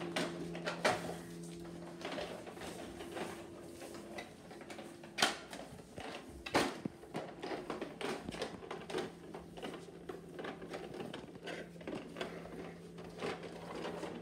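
Plastic toy trucks and a toy hauler's trailer being handled on a tile floor: sharp knocks about a second in, around five seconds and near seven seconds, then a run of small clicks and rattles. A steady low hum runs underneath.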